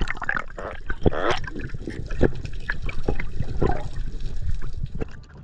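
Water rushing and bubbling around an underwater camera as a diver goes under, with many irregular knocks and clicks.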